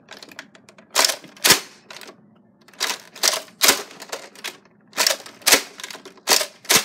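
Nerf foam-dart blaster's plastic mechanism clacking as it is worked: about nine sharp clacks, mostly in pairs half a second apart. The blaster is out of ammo, so it is being worked empty.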